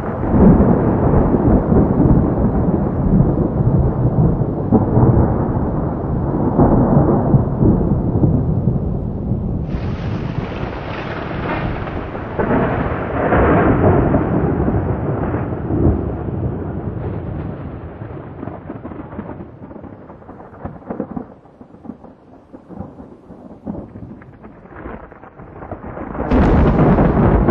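Thunder rolling and rumbling at length in a thunderstorm. It fades away over the second half, then a new loud clap breaks in near the end.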